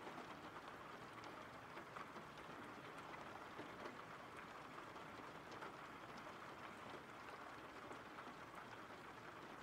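Faint steady rain: an even patter with many small scattered drop ticks.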